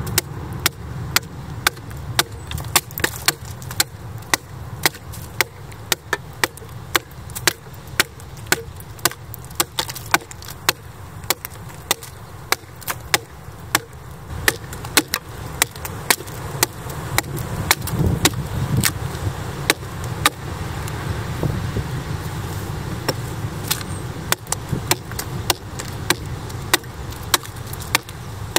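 Medieval-style axe hewing the face of a split red oak board: a steady run of sharp chops, the blade biting in again and again and shaving off wood.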